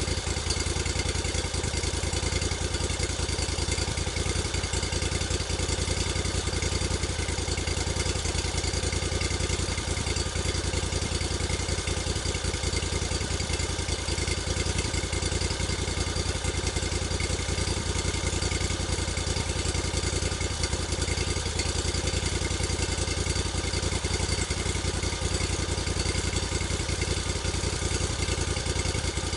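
Sawmill engine running steadily with no change in speed while logs are milled.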